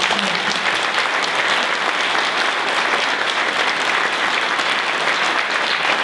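A large audience in a packed hall applauding, a dense, steady clapping that holds at full strength throughout.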